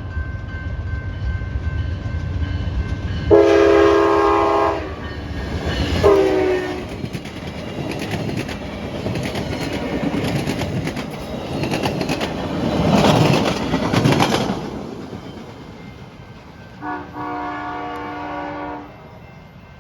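A passenger train's Nathan K5LA five-chime air horn sounds a long blast, then a short one that sags in pitch as the locomotive closes in. The train then rushes past with wheel clatter and hiss and fades away. About 17 seconds in, one more long horn blast comes at a lower pitch as the train recedes.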